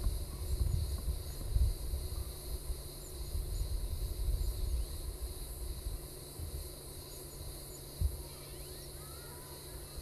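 Wind buffeting the microphone in gusts over a steady high insect drone in a pine forest. There is a single thump about eight seconds in, and a few short bird chirps near the end.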